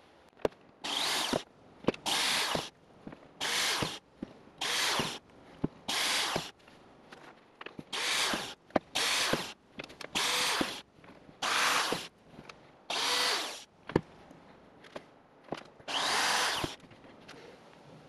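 Power drill boring into a carved wax candle in about eleven short bursts, each under a second, with sharp clicks between them as the trigger is pulled and released.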